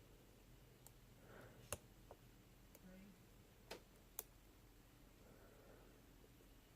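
Faint, scattered clicks of a hook pick working the pins of a pin-tumbler lock under light tension: about half a dozen small ticks, the sharpest about two seconds in and two more around four seconds.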